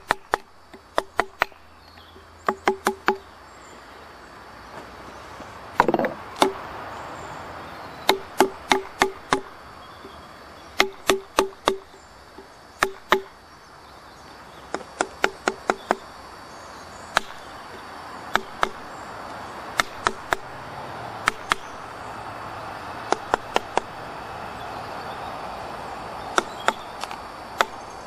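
Hammering: hard strikes in quick groups of two to four, each with a short ringing note.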